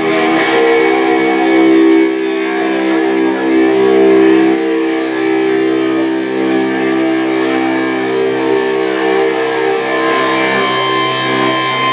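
Amplified electric guitar letting a chord ring out and sustain, a steady held drone with no drum beat.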